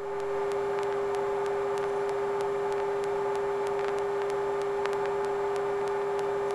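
Steady hum of the Sikorsky S-58T helicopter heard over its intercom: one held tone with overtones and faint, evenly spaced ticking.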